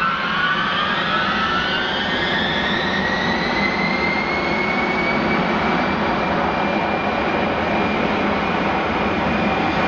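Tupolev Tu-154M's three Soloviev D-30KU-154 turbofans spooling up for takeoff: a whine rises in pitch over about five seconds, then holds steady above loud jet noise.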